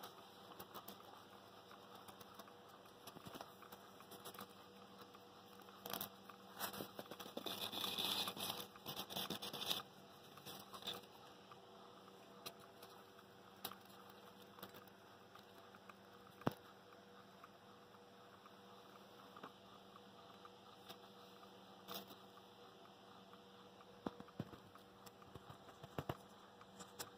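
Crinkling and rustling of reflective bubble-foil insulation being handled and pressed down by hand, with scattered small clicks and taps. A louder spell of rustling comes about eight seconds in, over a faint steady hum.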